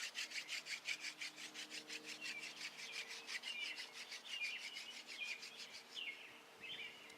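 Hand-drill friction fire: a horseweed spindle spun back and forth between the palms in a sycamore hearthboard, rubbing in quick, even strokes several times a second that stop about six seconds in. Birds chirp over it.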